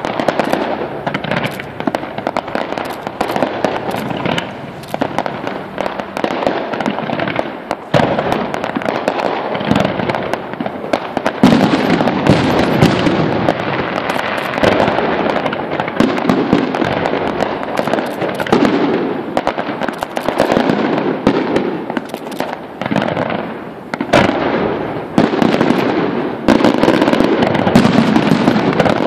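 Fireworks display: aerial shells bursting in a dense, continuous run of overlapping bangs and crackles, getting louder about a third of the way in.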